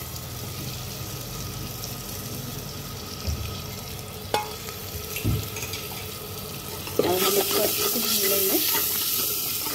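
Grated tomato sizzling as it fries in hot mustard oil with onion and spice masala in a clay handi, a steady sizzle with a few knocks against the pot. About seven seconds in the sizzle gets louder and hissier.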